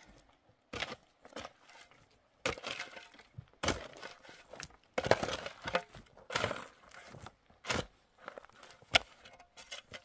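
Steel shovel digging into stony, rocky soil: the blade strikes and scrapes the ground and loose stones clink and rattle as the dirt is lifted, about one stroke a second.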